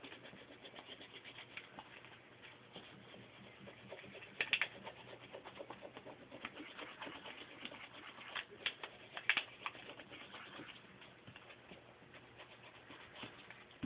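Faint scratching and small clicks of a burnishing tool rubbed firmly along tinned silver foil tape on the edge of a piece of glass, pressing the tape down, with a few louder scrapes about four and a half seconds in and again around nine seconds.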